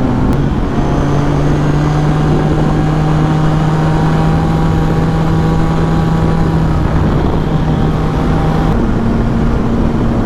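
Yamaha FZ-09 inline-three motorcycle engine running at a steady cruising pitch under heavy wind noise on the rider's microphone. The engine note drops about half a second in and steps up higher near the end.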